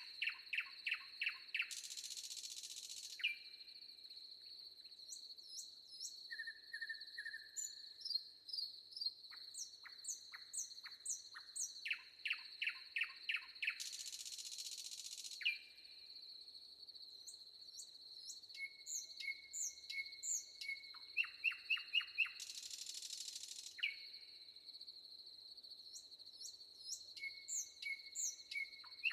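Forest songbirds singing over a steady high-pitched insect drone. Every few seconds one bird gives a quick series of about six to eight downward-sweeping notes, while others add thin high chirps. Three times, a brief harsh hissing burst stands out.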